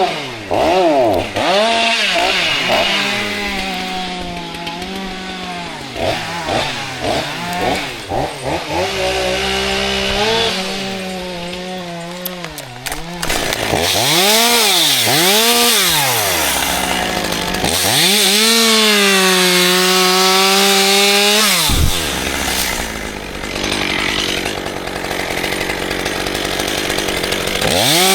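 Chainsaw engine revving up and down again and again while cutting wood, its pitch rising and falling with each burst of throttle. Later it holds high for a few seconds through a cut, then the revs drop sharply.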